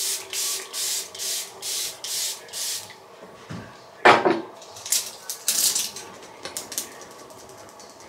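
Pump-mist setting spray bottle spritzed in quick succession, seven short hisses at about two and a half a second, then a single louder thud about 4 s in and a few more short sprays.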